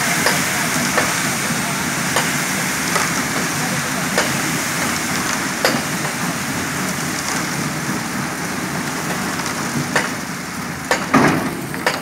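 Steady noisy rush of a mobile concrete mixer at work, with sharp knocks every second or two and a louder clatter about eleven seconds in.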